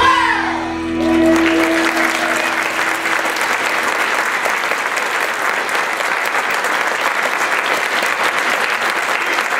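The last held note of a song fades over the first few seconds as an audience claps, applause starting about a second in and carrying on steadily.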